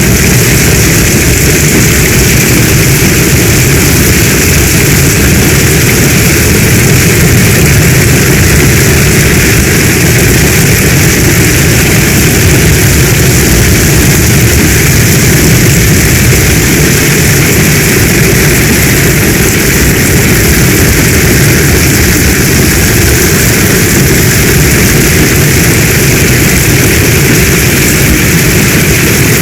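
Heavy storm rain, a steady dense hiss with a deep rumble underneath and no let-up.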